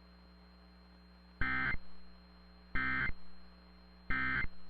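Emergency Alert System end-of-message data tones: three short, identical buzzy bursts of digital signal, evenly spaced about a second and a third apart, marking the end of the severe thunderstorm warning. A faint steady hum lies underneath.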